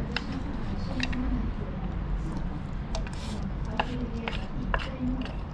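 Wooden chopsticks clicking against a lacquered eel-and-rice box as the last rice is picked out, several light clicks spread unevenly over a low steady hum.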